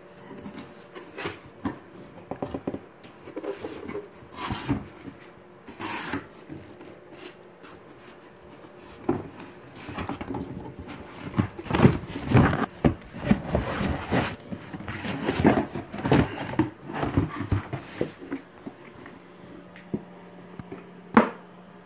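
A cardboard shipping box and the black plastic battery box inside it being handled: irregular rustling, scraping and knocking as the flaps are opened and the box is lifted out, busiest in the second half, with one sharp knock near the end.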